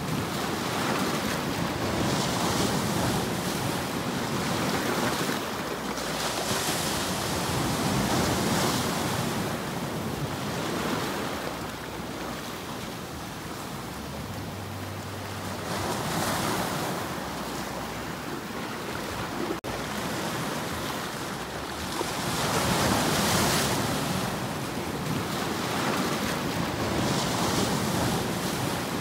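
Sea waves breaking and washing over shoreline rocks, the surf swelling and easing every few seconds.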